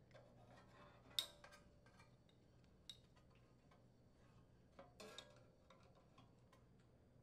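Near silence with a few faint clicks and light knocks from handling a refrigerator ice-dispenser solenoid assembly in its sheet-metal housing. The sharpest knock comes about a second in, a single tick near the middle, and a short cluster of clicks about five seconds in.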